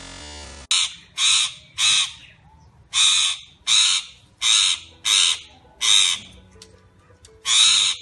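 A parrot giving about ten loud, harsh squawks in an uneven series, each under half a second long, starting just under a second in.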